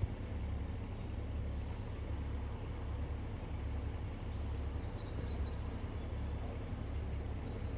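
Steady low rumble of an Airbus A380's jet engines passing overhead, with a few faint bird chirps about five seconds in.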